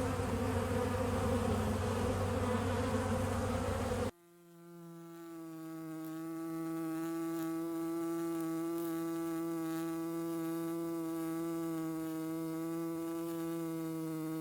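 Bees buzzing: a dense, many-layered swarm buzz, then about four seconds in a sudden cut to a single steady, even-pitched buzzing hum that fades in and holds.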